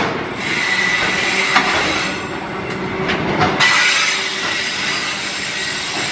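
Container freight train's wagons rolling past close by, steel wheels running on the rails with a steady rumble and sharp knocks over rail joints. A high wheel squeal rings for about a second, starting half a second in.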